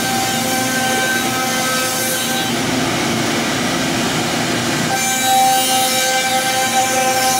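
ALCA AL-2030-4S four-spindle CNC router machining pine blanks: a steady high whine from the spindles over the rough noise of the bits cutting wood. For a couple of seconds in the middle the whine fades and the cutting noise grows rougher, then the whine returns.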